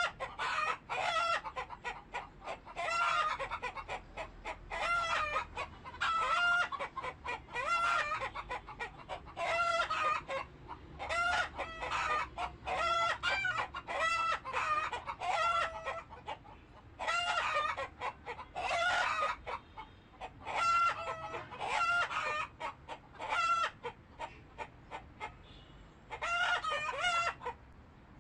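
Chickens calling over and over, clucks and rooster crows from several birds in quick succession, with a few short lulls.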